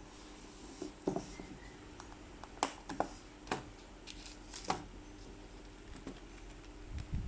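Hands handling packaging and small items: scattered light clicks and taps over a faint steady hum.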